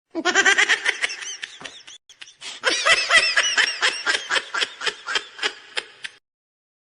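A laughing sound effect: two bouts of quick, high-pitched laughter, the second longer, trailing off at the end.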